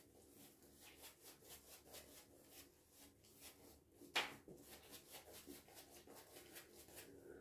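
Synthetic-fibre shaving brush being worked over a lathered face, a soft swishing rub about three strokes a second, with one louder stroke about four seconds in. The brush is building shaving-soap lather directly on the skin.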